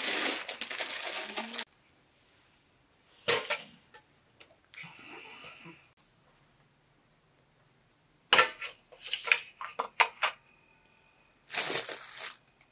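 Intermittent household handling sounds: bursts of rustling noise and a quick run of clicks and knocks, like objects being set down and moved about.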